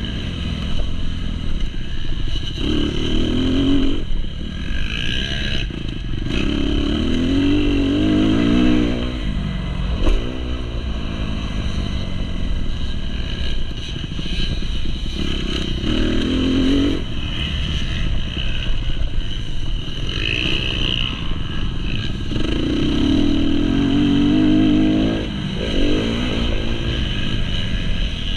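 2019 Kawasaki KX250 four-stroke single-cylinder motocross engine ridden hard, heard close from the bike. The revs climb and drop off several times as the rider accelerates and shifts along the track.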